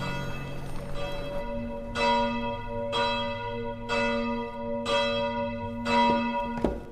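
A church bell tolling steadily, five strokes about a second apart starting about two seconds in, each stroke ringing on into the next.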